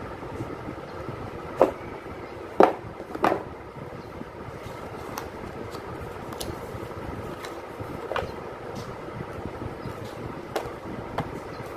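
Cardboard phone box being handled and opened: a few sharp taps and knocks, three close together in the first few seconds and a couple more later, as the lid is lifted off. A steady background rumble runs underneath.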